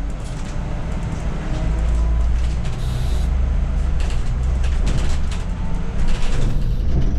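Scania OmniCity city bus's engine and drivetrain running as the bus pulls away and drives on, with the low engine note shifting in pitch as it accelerates. A brief hiss about three seconds in.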